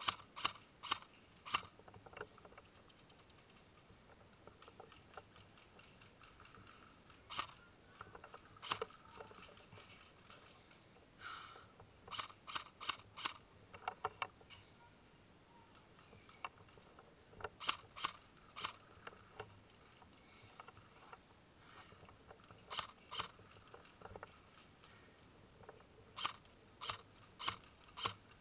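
Airsoft gunfire: short strings of three to five sharp snaps, fired in bursts several times, with quiet stretches between.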